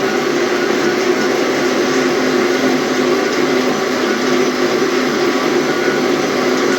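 Electric kitchen blender running steadily at one speed, blending herbs and spices in water into a liquid remedy.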